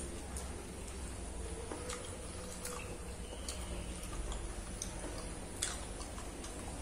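Eating by hand: sparse, sharp, irregular clicks and smacks as fingers pick rice scraps off a ceramic plate and the mouth chews, over a low steady hum.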